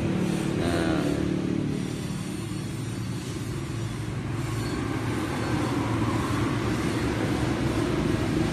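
A motor vehicle's engine running steadily, low-pitched and even throughout.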